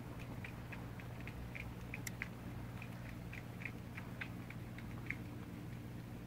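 Cats eating wet cat food: a quick, irregular run of small wet chewing and smacking clicks, several a second.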